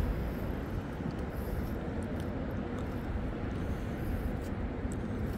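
Steady, even rumble of wind and water around an open boat at sea, low-pitched and without distinct events.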